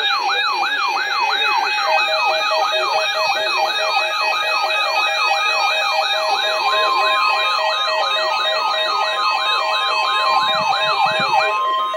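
Stacked electronic siren alarm of a mock emergency alert: a yelp siren sweeps up over and over, about two to three times a second, layered with a higher wavering siren and repeating beeps. About seven seconds in, a steady single alert tone joins them. The sirens and beeps cut off suddenly near the end, leaving the steady tone.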